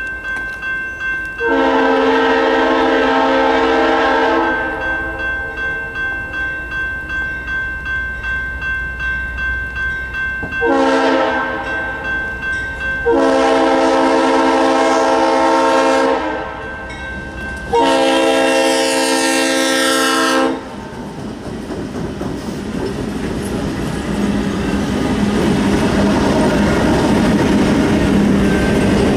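Railroad locomotive air horn sounding four blasts: long, then short, then two long. Between them the wheels clack evenly over rail joints, about twice a second. After the last blast the train's rumble grows steadily louder as it passes.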